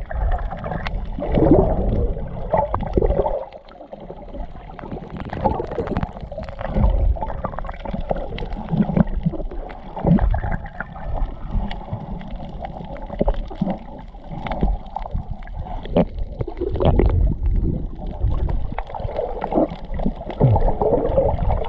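Water gurgling and sloshing as heard from an underwater camera while swimmers kick past, in irregular muffled surges with scattered small knocks.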